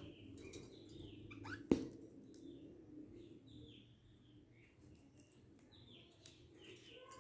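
Pet budgerigars chirping softly in short, falling chirps, with one sharp click about one and a half seconds in.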